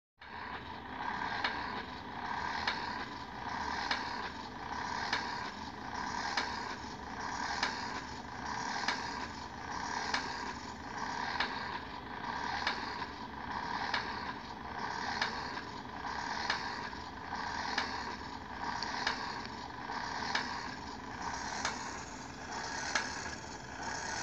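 Small electric motor and plastic gears of a toy trash-can robot whirring, swelling and easing in an even cycle with a sharp click about every one and a quarter seconds.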